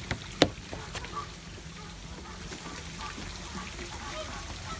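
A few sharp clicks in the first second, then faint short bird calls over a steady low background rumble.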